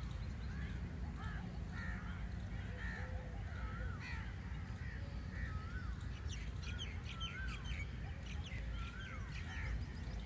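Wind in trees as a steady low rumble, with several birds calling over it: repeated short calls that rise and fall, and a burst of quick high chirps past the middle.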